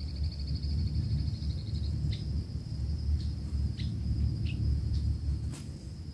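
Outdoor insects trilling: a steady high trill throughout, joined by a faster pulsing trill for the first two seconds and several short sharp chirps after that, over a low steady rumble. A single click comes near the end.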